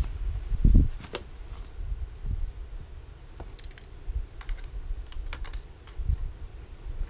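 Scattered light clicks and rustles of camping gear and food packets being handled at a small gas stove, over irregular low rumbling thumps, the loudest about a second in.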